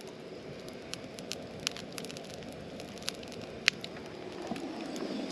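Campfire of freshly added wood burning in a fire pit: a steady low rush with scattered sharp crackles and pops, one pop louder than the rest past the middle.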